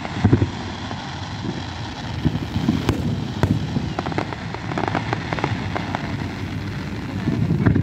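Aerial fireworks display: irregular booms of shells bursting, with a quick run of sharp cracks about four to six seconds in and a heavy boom near the end.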